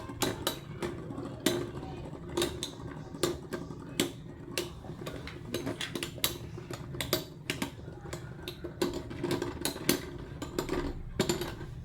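Metal-wheeled Beyblade spinning tops clashing, including L Drago Destroy F:S: a busy run of irregular sharp metallic clicks and clacks, several a second.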